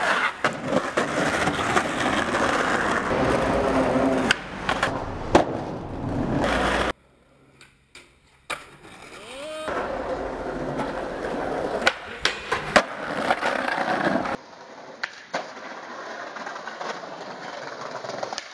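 Skateboard wheels rolling and grinding on concrete, broken by sharp clacks of the board popping and landing. The sound cuts out for about two seconds partway through, then returns, and is quieter near the end.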